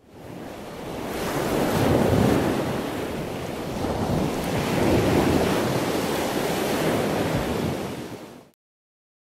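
Ocean surf washing onto a sandy beach. It fades in, swells twice, and cuts off suddenly near the end.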